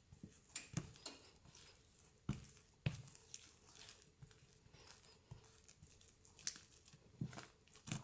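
Hands working softened butter into bread dough on a silicone mat: faint, irregular squishing and patting, with a few sharper taps.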